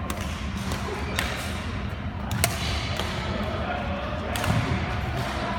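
Badminton rackets striking a shuttlecock in a rally: four sharp cracks about a second apart, the loudest near the middle, over the murmur of a large sports hall.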